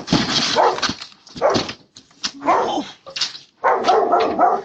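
Dog barking like crazy in repeated loud bursts.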